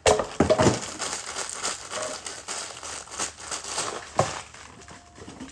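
Tissue paper and package wrapping crinkling and rustling as hands dig through a box, with a sharp knock at the start and another about four seconds in.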